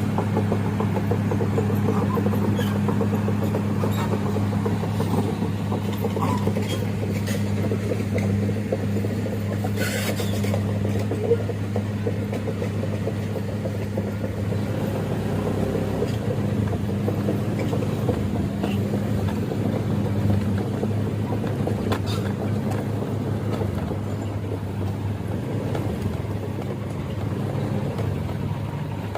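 An engine running steadily with a low hum, which grows fainter and less even about halfway through.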